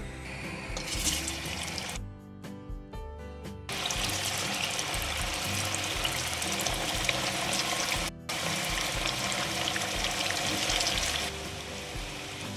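Whole boiled potatoes deep-frying in hot oil in a frying pan: a dense, steady sizzle that sets in about four seconds in, breaks off for an instant near the middle and eases near the end. Background music plays underneath.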